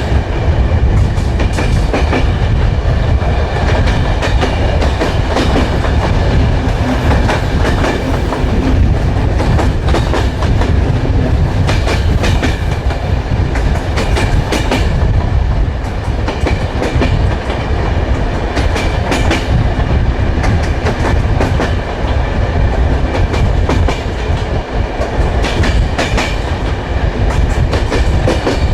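Train wheels running over the rails: a steady low rumble with repeated clickety-clack clicks as the wheels pass rail joints.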